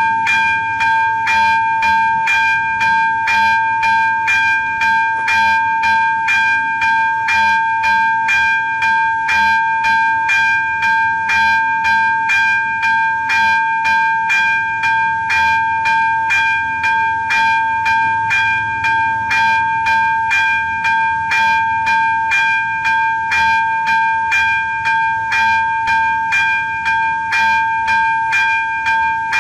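AŽD 71 level-crossing warning bell ringing in steady, rapid strokes, about two a second, each one ringing on into the next. It signals that a train is approaching and the crossing is closed.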